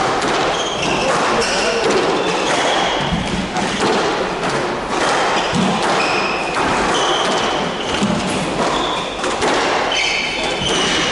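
Squash rally: repeated sharp thuds of the ball off rackets and court walls, with short high squeaks of court shoes on the wooden floor, over steady background voices.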